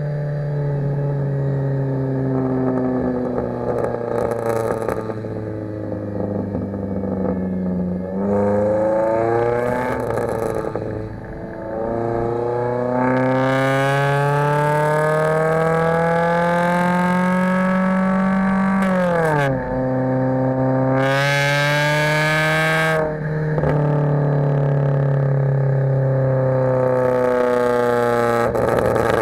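2011 Kia Forte EX's four-cylinder engine and exhaust under way. The revs climb steadily for several seconds midway, drop sharply at a gear change, then ease off slowly, with a few crackles from the exhaust as the revs fall near the end.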